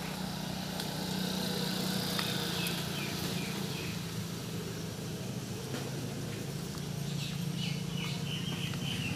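A steady low motor hum, with a bird chirping in quick short notes, once about two seconds in and again in a longer run near the end.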